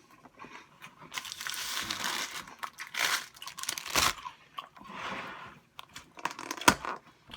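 Takeout food packaging being handled and opened: irregular crinkling and rustling of plastic and paper, with a few sharp clicks and knocks near the end.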